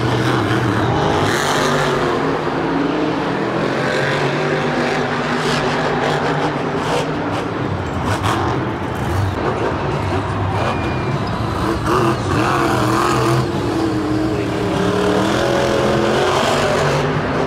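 Monster truck engines, big supercharged V8s, running loud with the pitch rising and falling as the drivers rev and let off. A few short knocks punctuate the engine sound.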